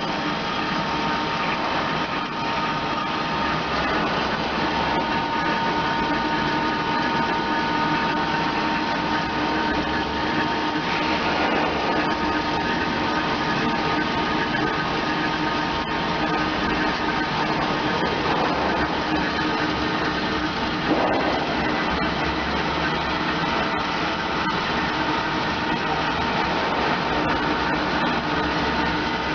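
MetalMaster PT 330 metal-cutting band saw running under automatic feed, its blade cutting through a clamped workpiece: a steady mechanical hum with a steady whining tone. There is a brief knock about 21 seconds in.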